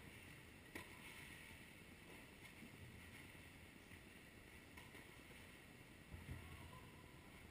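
Near silence: a faint steady hiss of room tone, broken about a second in by one sharp pop of a tennis ball being struck by a racket, with a much fainter tick near five seconds.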